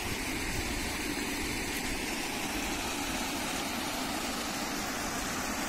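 Garden fountain jets and a stepped water cascade splashing and rushing steadily.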